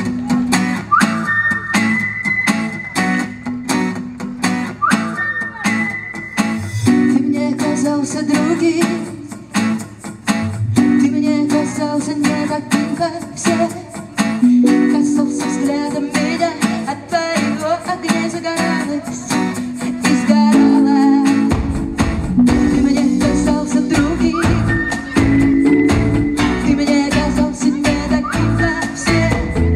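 Live pop music from a band over a concert PA, playing a song's intro with a steady beat. A short rising slide recurs several times, and a deep bass line comes in about two-thirds of the way through.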